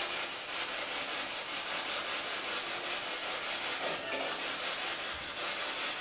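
Spirit box sweeping through radio stations: a steady hiss of radio static with a fast, regular choppiness from the scanning.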